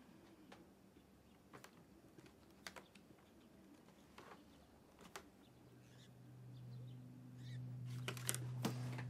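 Quiet room tone with scattered small clicks and faint bird chirps. About halfway in, a low steady drone swells up and grows louder, the start of the film's background music.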